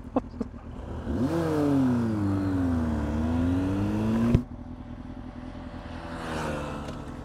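Yamaha Fazer 1000's inline-four engine pulling away from a standstill. Its pitch climbs, eases, then climbs again over wind rush, and it cuts off abruptly about four and a half seconds in. A quieter, steady engine note and wind follow.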